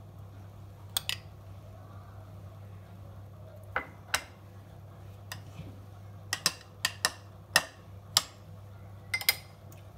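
Metal spoon clinking against a glass dessert cup and ceramic bowl as cream is spooned and scraped over a layered dessert: about a dozen sharp clinks, some in quick pairs. A steady low hum runs underneath.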